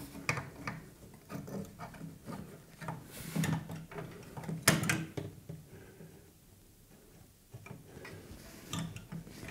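Irregular light knocks and clicks of a GeForce RTX 3060 Ti graphics card's metal bracket and shroud bumping against a PC case as it is lined up with the motherboard slot. The loudest knocks come about three and a half and five seconds in. The card is catching and will not seat.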